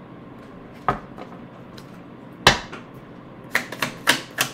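A deck of tarot cards being handled and shuffled by hand: a light tap about a second in, a sharper slap of cards about halfway through, then a quick run of card snaps near the end as the deck is shuffled.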